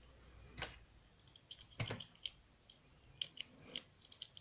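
Faint small plastic clicks and taps from a 1990 G.I. Joe SAW Viper action figure being handled as an arm is fitted onto its torso, with two sharper knocks in the first two seconds.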